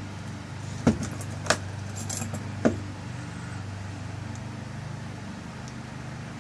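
A few sharp metallic clicks and taps of small lock parts as the tailpiece is screwed back onto a rekeyed lock cylinder, over a steady low hum.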